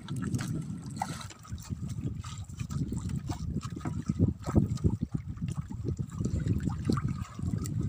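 Water splashing and trickling around a small wooden fishing boat, broken by irregular knocks and handling thumps as fishing gear is worked over the side.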